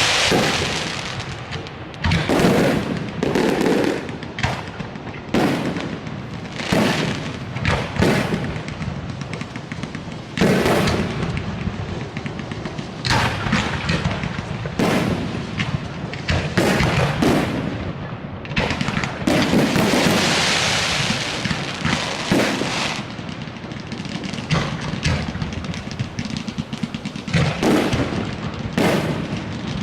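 Aerial fireworks display: shells bursting in quick succession, the booms overlapping with crackle and fizzing between them.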